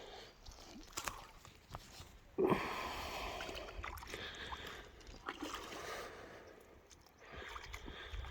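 A sudden splash about two and a half seconds in, followed by a few seconds of water churning and sloshing as a swimmer thrashes in icy lake water.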